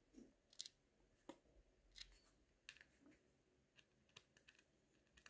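Near silence broken by faint, irregular light clicks of watchmaker's tools on the small parts of a Miyota 8215 movement during assembly, about eight or nine ticks spread over a few seconds.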